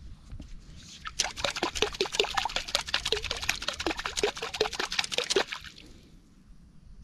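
Water splashing and plopping rapidly where the fishing line enters the water, as a fish on the hook thrashes at the surface. The splashing starts about a second in and stops shortly before the end.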